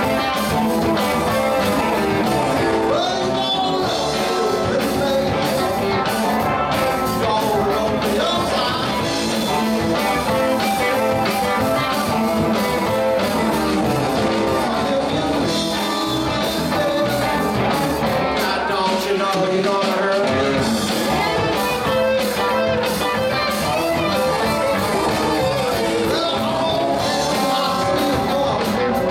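Live blues-rock band playing at a steady loud level: electric guitars, electric bass and a drum kit.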